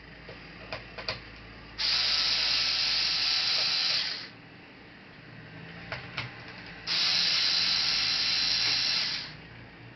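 A small motorised tool whirring in two steady bursts of about two and a half seconds each, each preceded by a few light clicks.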